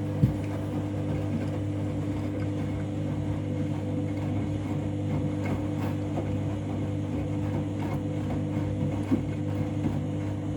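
Candy washing machine's drum motor running steadily during the first rinse, a steady hum as the drum turns, with faint ticks from the tumbling load and water and one sharp knock just after the start.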